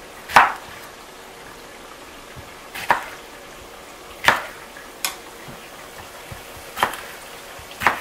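Kitchen knife cutting tomatillos on a wooden board, the blade knocking on the wood about six times at uneven intervals. Under it, a soft steady sizzle of tomatillos frying in oil in a pan.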